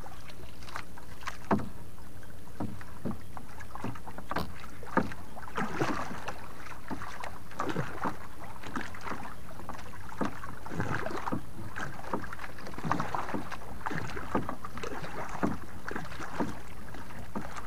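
Water splashing and lapping around a small wooden fishing boat, with scattered knocks and clicks at irregular intervals over a steady low rumble.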